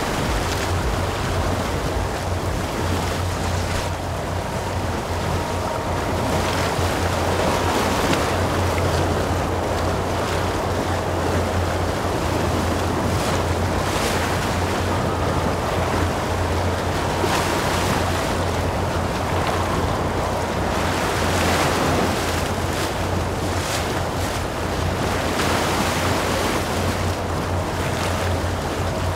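Wind buffeting the microphone over the steady wash of waves and surf at an ocean inlet, with a heavy low rumble and brief surges now and then.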